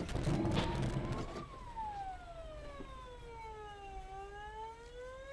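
Police car siren wailing: one slow sweep that rises to a peak about a second and a half in, falls slowly until about four seconds in, then starts to rise again. A rough burst of noise sits under the siren in the first second.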